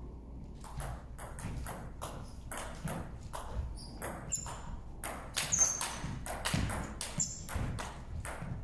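Table tennis ball ticking off the paddles and the table in play, a long run of sharp clicks about three a second.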